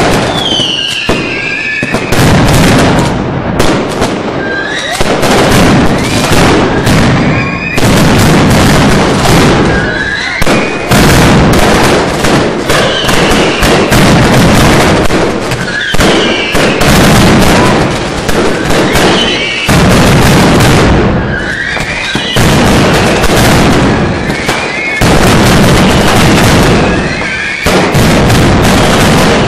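A fireworks display going off without a break: bangs and dense crackling, with short rising and falling whistles recurring every few seconds.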